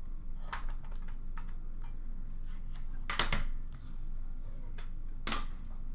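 Trading cards and plastic card holders being handled: scattered light clicks and taps, with two louder brief scraping sounds about three and five seconds in.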